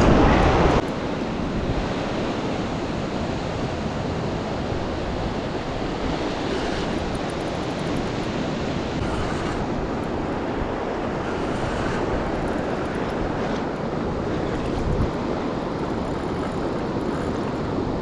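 Surf washing onto a beach, a steady rush of breaking waves, with wind buffeting the microphone.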